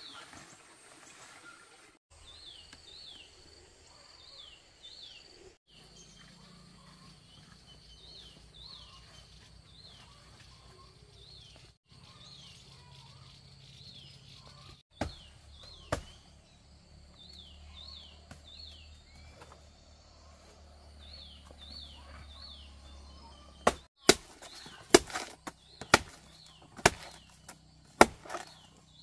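A large knife chopping into a banana plant's trunk, about eight sharp strikes over the last five seconds. Before that, a bird's high chirps repeat in short groups over a quiet forest background.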